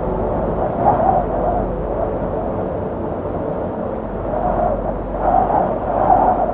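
Wind buffeting the microphone: a steady low rumble that swells in gusts about a second in and again around five to six seconds in.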